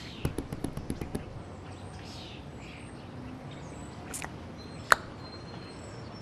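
A quick run of about ten short clicks, then a low steady hiss broken by a few single clicks, the sharpest about five seconds in.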